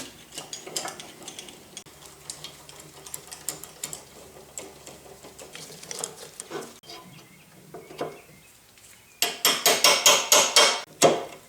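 Metal tools and parts clinking and tapping during machine assembly, then near the end about two seconds of rapid, loud metallic strikes, roughly six a second.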